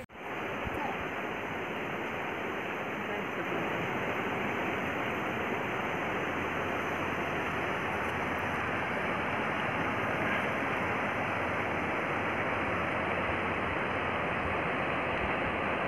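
Steady, even rush of a wide river's current flowing past the bank.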